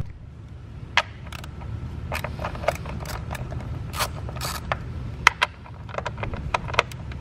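Ratchet wrench clicking in short, irregular runs as the 10 mm bolts holding a plastic engine cover are backed out, with a steady low hum underneath.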